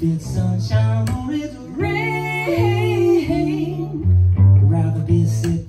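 Instrumental music from an electric fiddle and a cello played as a bass: a plucked cello bass line of short low notes, under a fiddle lead that holds one long wavering note about two seconds in.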